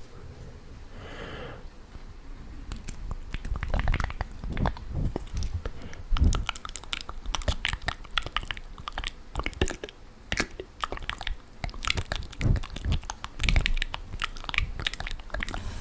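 Close-miked ASMR mouth sounds: a dense, irregular run of wet clicks and smacks, like chewing, starting a couple of seconds in.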